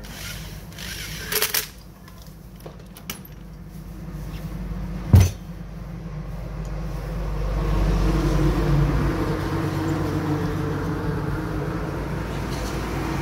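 A few light clicks, then a sharp knock about five seconds in. After it a machine starts a steady low hum that builds over a few seconds and then holds.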